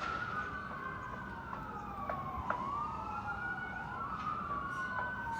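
Emergency vehicle sirens wailing, a slow rise and fall repeating about every two and a half seconds, with two wails overlapping out of step.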